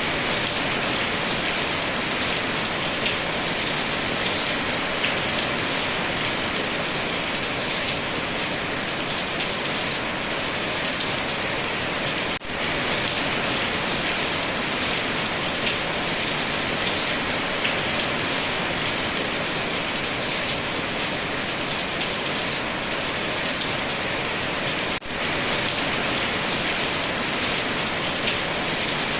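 Steady rain falling, an even dense hiss of drops. The level drops for an instant twice, about twelve seconds apart.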